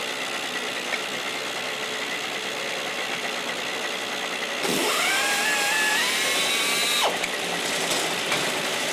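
Steady hum of engine assembly-line machinery. About halfway through, a motor-driven tool spins up in a rising whine for two or three seconds, then cuts off suddenly.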